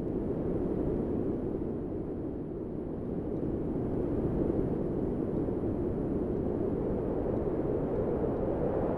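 Recorded wind sound effect: a low, steady rushing of wind that slowly swells and eases, without gusts or whistles.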